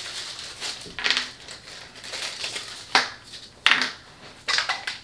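Craft supplies handled on a tabletop: four short knocks and rattles at irregular gaps, as tools and a plastic glue bottle are picked up and set down.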